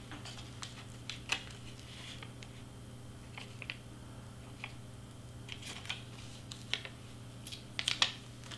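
Scattered light clicks and rustles of cardstock pieces and foam tape being handled and pressed on a cutting mat, with the loudest cluster of taps near the end.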